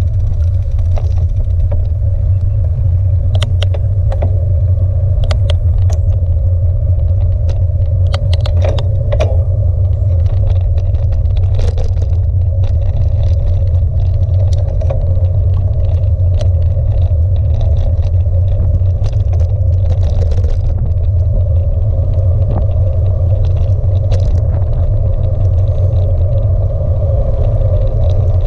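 Steady low rumble of wind and tyre-on-tarmac noise picked up by a camera on a moving bicycle, with scattered light ticks and rattles as the bike runs over small bumps in the road.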